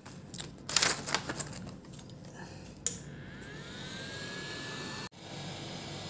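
Handling clicks and knocks, then a sharp click and a small motor spinning up into a steady high whine. The whine stops abruptly about five seconds in.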